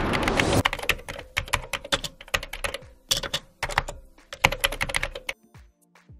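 Typing sound effect: a rapid, irregular run of keyboard key clicks that stops about five seconds in. It opens with the tail of a whoosh that fades in the first half-second.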